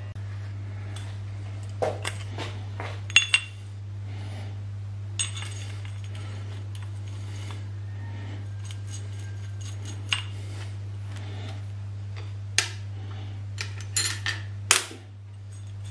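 Metal parts clinking and knocking as the power-feed motor and its aluminium mounting plate are handled and fitted against the milling machine table, with the loudest knocks about three seconds in and near the end. A steady low hum runs underneath.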